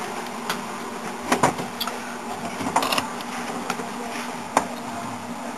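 Steady low hum with a handful of light, scattered clicks and knocks.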